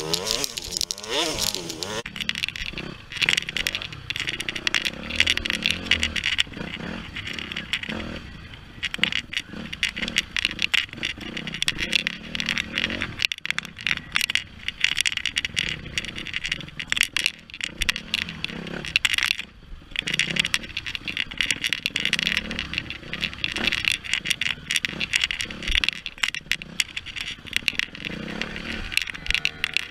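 Dirt bike engine running and revving up and down as the bike rides over rough, rutted ground, under constant rattling and knocking of the bike and its mounted camera.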